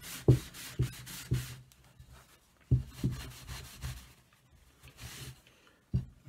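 Cloth rubbing teak oil into the edges of a wooden plaque, in a run of short strokes broken by two brief pauses.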